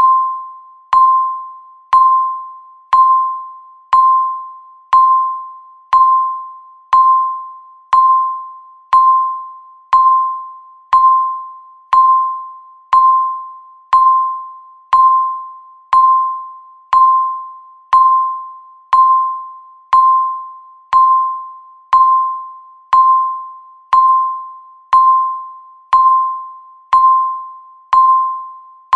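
Electronic countdown-timer beep: a single mid-pitched tone struck once every second, each starting sharply and fading away before the next.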